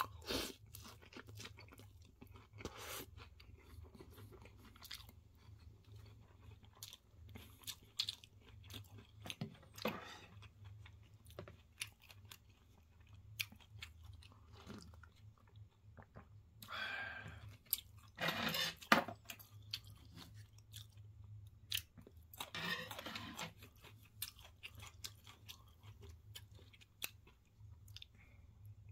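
Close-up chewing of crispy breaded pork cutlet with rice and curry: many small wet clicks, with a few longer, louder crunches about two-thirds of the way through. A steady low hum lies underneath.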